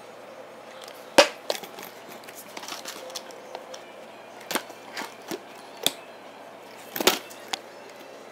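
Handling a food container and bowl on a wooden floor: a handful of sharp knocks and clicks spread over several seconds, the loudest about a second in and another near seven seconds in.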